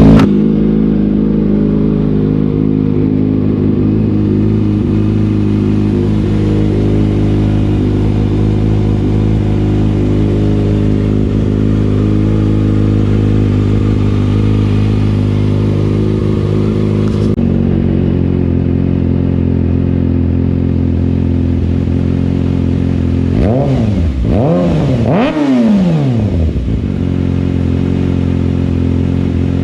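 2020 Kawasaki ZX6R's 636 cc inline-four idling through an M4 GP19 slip-on exhaust with the catalytic converter removed, a deep, loud note while it warms after a cold start. The idle steps slightly lower about 17 seconds in. Three quick throttle blips come around 24 to 26 seconds in, then it settles back to a steady idle.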